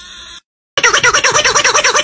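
A short screechy 'waaa' cry cuts off. After a brief gap, a loud sound starts that warbles up and down about seven times a second.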